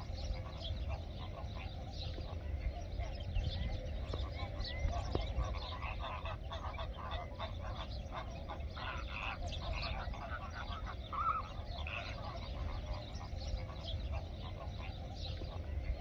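A large flock of greater flamingos calling continuously: a dense chatter of many overlapping short calls, over a steady low rumble.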